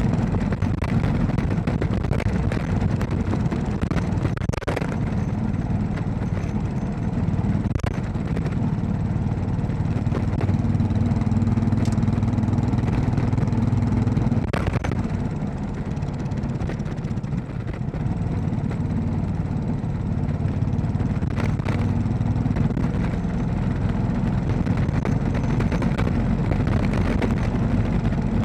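Royal Enfield Classic 500's single-cylinder engine running steadily under way on an unsealed road, easing off briefly about two-thirds of the way through, with a few sharp knocks.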